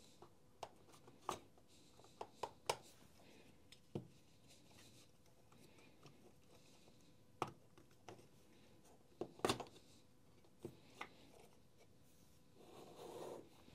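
Scattered light clicks and knocks of plastic parts being handled as the left inner housing half of a Makita DTM52 cordless multi-tool is lifted off during disassembly, with a louder cluster of knocks about two-thirds of the way in and a brief soft rustle near the end.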